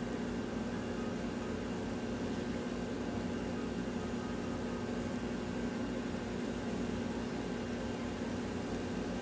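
Steady low mechanical hum with a faint constant whine and hiss, unchanging throughout.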